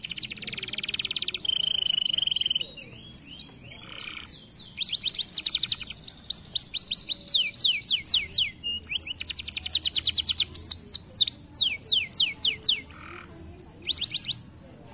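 Domestic canary singing: phrases of rapid trills made of repeated down-sweeping whistles. A buzzy roll and a held note come near the start, with short pauses between phrases.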